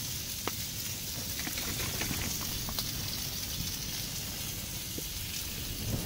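Chicken sizzling on a griddle plate over a cassette gas stove's burner: a steady frying hiss with scattered small pops of spattering fat.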